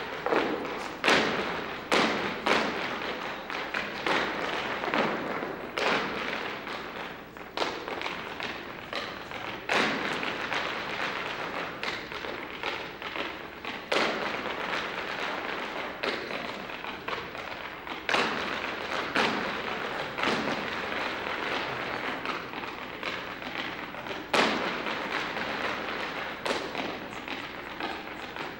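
Irish dance hard shoes striking a wooden stage in a group dance: a dense stream of rapid clicks and taps, broken by louder stamps every second or few.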